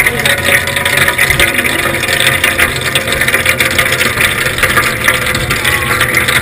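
Water from a garden hose rushing and splashing right at the microphone: a loud, steady hiss with a dense crackle.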